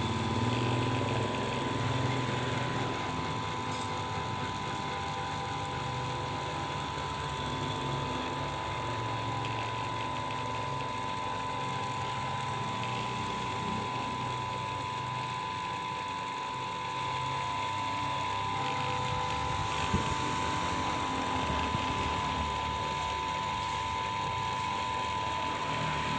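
Lathe running steadily with a high whine, and one sharp click about twenty seconds in.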